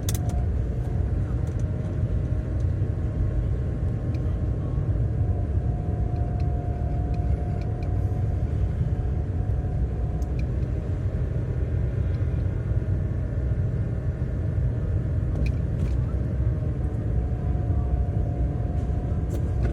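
Car cabin noise while driving: a steady low rumble of engine and tyres on the road, with a faint steady whine that drops slightly in pitch near the end and a few scattered light clicks.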